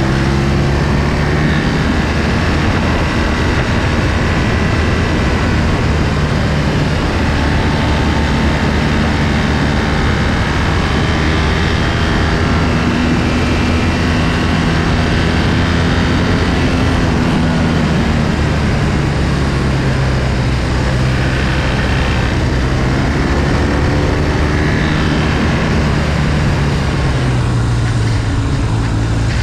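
Motorcycle engine running hard through a series of bends, its pitch repeatedly rising as it revs up and falling as it comes off the throttle, over a heavy rush of wind and road noise.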